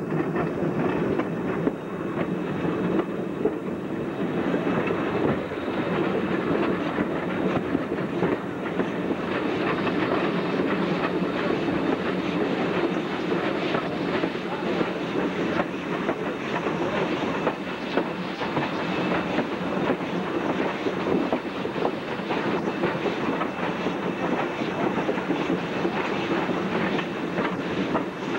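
Train running along the track: a steady clatter of wheels over the rails, with a continuous rumble.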